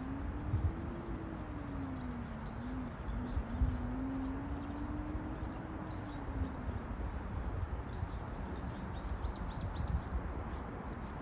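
Outdoor ambience: small birds chirp now and then, with a quick run of chirps near the end, over a steady low rumble. A faint wavering low hum runs through the first half.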